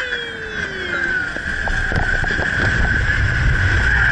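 Open-sided safari ride truck running along a rough track. A low rumble builds about two seconds in, under a steady high hum, with a brief falling tone at the very start.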